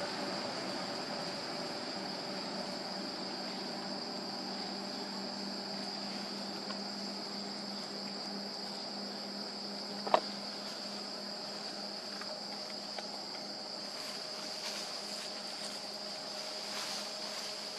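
Insects droning steadily at one high pitch, with a faint low hum beneath, and a single short, sharp sound about ten seconds in.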